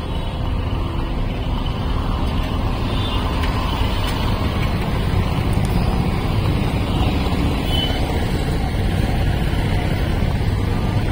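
Busy street traffic: the engines of passing vehicles running in a steady, dense rumble.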